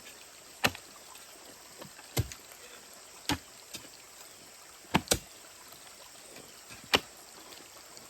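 Digging tool striking hard, stony ground in separate blows every second or two, including one quick double strike midway; rock in the soil makes the digging hard.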